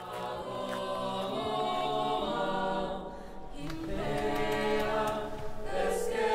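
Background music: a wordless choir singing long held chords, dipping briefly and swelling again about four seconds in.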